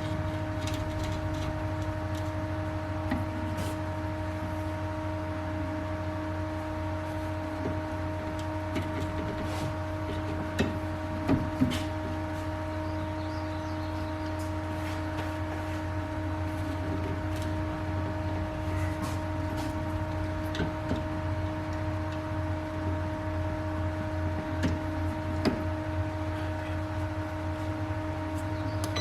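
Nova Viking drill press running at 550 RPM, its motor giving a steady hum with a steady whine above it, while an annular cutter bores through metal. Scattered clicks and knocks come from the cut, with a cluster of louder knocks about eleven seconds in.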